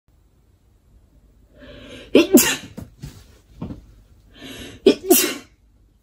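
A young woman sneezing twice, about two seconds in and again about five seconds in, each sneeze preceded by a drawn-in breath and carrying a short voiced cry.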